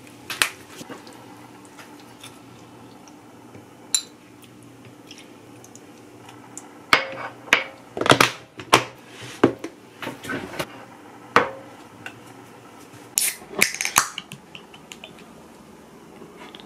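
Kitchen handling sounds: sharp plastic clicks and knocks of a snap-lock food container and dishes being handled. A couple of single clicks come first, then a busy run of clatters lasting several seconds.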